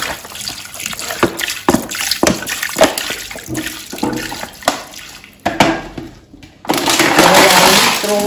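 Water glugging out of an upturned plastic bottle and splashing into a large aluminium pot already part-filled with water, in uneven gulps. After a short pause, a loud crackling rustle near the end as the emptied plastic bottle is handled.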